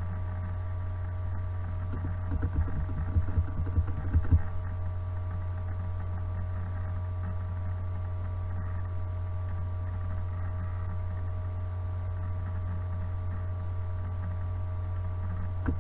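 Steady electrical mains hum, with a few fainter steady higher tones over it. A short stretch of low, irregular thumps comes about two to four seconds in.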